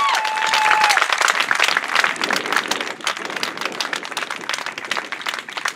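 Applause from a crowd clapping, dense at first and thinning to scattered claps toward the end.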